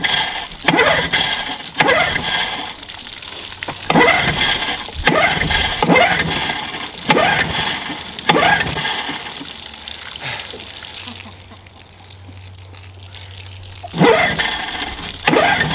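Recoil pull-cord of a small Johnson two-stroke outboard being yanked over and over, roughly once a second, each pull spinning the engine briefly without it catching. After a gap of a few seconds come two more pulls near the end. A garden hose runs water into the lower unit underneath.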